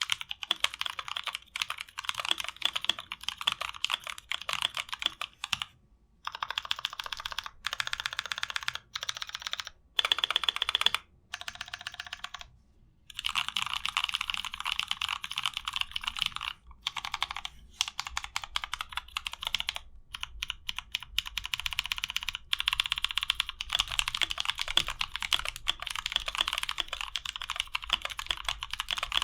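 Continuous typing on a 60% mechanical keyboard with lubed NovelKeys Blueberry tactile switches: quick runs of keystrokes with a few brief pauses. The switches are audibly scratchy, a scratchiness the lube does not remove; the owner hopes it will wear in.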